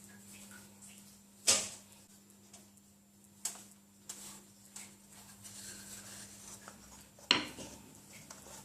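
Kitchen utensils knocking on a work surface while shortcrust dough is lifted into a tart mould: two sharp knocks about six seconds apart, with a few lighter clicks between them. A steady low hum runs underneath.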